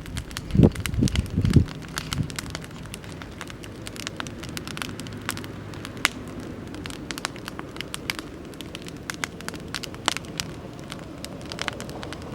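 Oak-firewood campfire crackling, with sharp pops scattered throughout. A few strong low thumps come between about half a second and a second and a half in.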